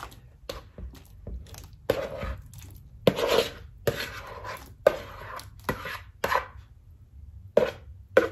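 Metal spoon knocking and scraping against a plastic bowl as cubes of papaya are pushed off into a pot of boiling water. An irregular run of clacks and plops.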